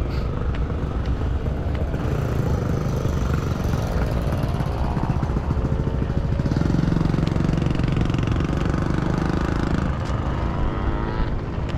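A motor vehicle engine running nearby, its pitch rising and falling several times, loudest for a few seconds past the middle, over a steady low rumble.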